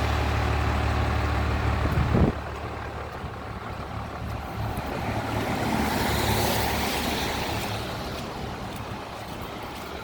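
A vehicle engine running with a steady low hum, which stops abruptly with a brief loud thump about two seconds in. A steady rushing noise follows, swelling for a few seconds and then easing off.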